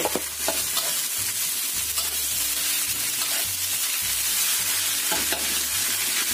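Mashed tofu and vermicelli sizzling steadily in hot oil in a wok, with a metal spatula scraping and knocking against the wok as the mixture is stirred; a few sharper scrapes come near the start and about five seconds in.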